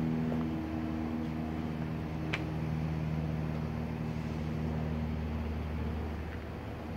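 A steady low mechanical hum made of several held tones, with one light click about two and a half seconds in.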